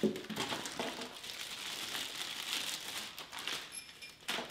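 Clear plastic packaging bag crinkling continuously as it is handled and pulled around a bagged organizer part.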